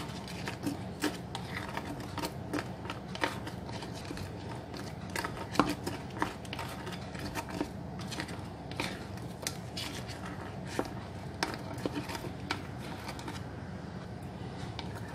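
White plastic spatula folding a thick whipped-cream mixture with crushed Oreos and chocolate cake pieces in a ceramic bowl: irregular soft clicks and scrapes of the spatula against the bowl, over a low steady hum.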